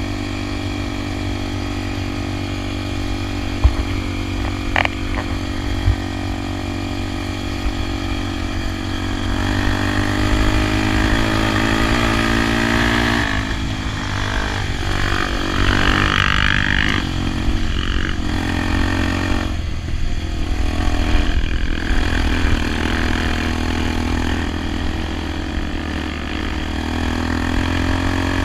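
Honda XR 250 Tornado's single-cylinder four-stroke engine running steadily, its engine speed shifting a few times partway through.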